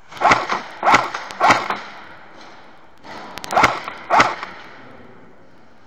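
VFC Avalon Saber electric airsoft rifle firing single shots: three sharp cracks about half a second apart, then after a pause of over a second, a few more.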